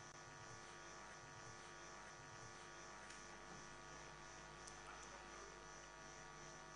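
Near silence: a faint, steady electrical hum.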